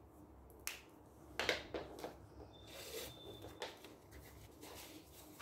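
Paper pieces being handled and slid on a wooden tabletop, with a few sharp clicks and taps, the loudest about a second and a half in.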